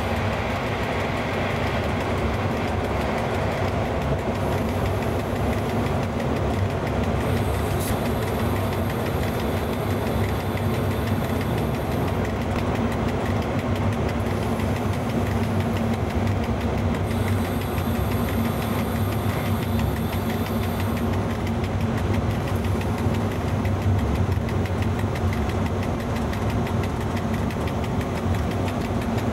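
Cab noise of an FS E.656 electric locomotive running at speed: a steady mechanical drone with a low hum, over the rolling of the wheels on the rails.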